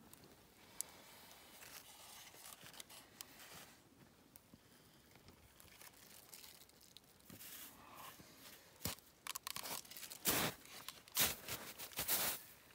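Faint rustling and crinkling, then a run of loud, sharp crunches over the last five seconds.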